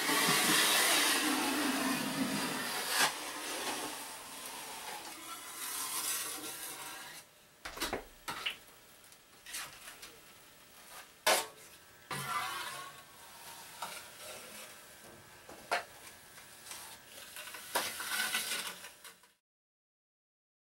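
Metal drywall knife scraping joint compound, loudest in the first few seconds, then lighter scraping and wiping with several sharp taps of the knife against a mud pan. It cuts off suddenly near the end.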